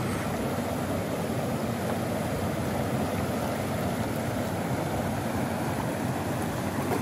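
Steady rush of river rapids and a small waterfall, an even wash of water noise that does not change.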